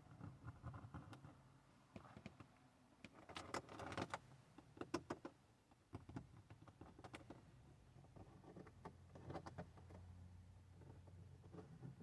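Quiet clicks and light rattles of small parts being handled by hand, most of them around the fourth and fifth seconds, over a faint low hum.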